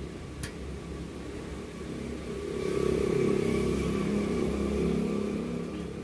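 A motor vehicle engine passing by, swelling about two and a half seconds in and fading near the end, over a steady low hum, with a single sharp click near the start.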